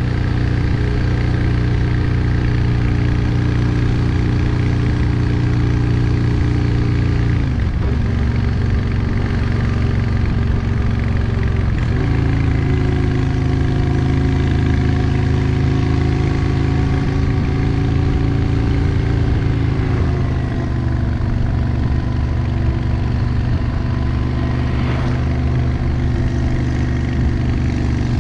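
Yamaha XVS650 Drag Star's V-twin engine running under way, its pitch drifting slowly lower with brief breaks about 8 and 12 seconds in and a shift again near 20 seconds.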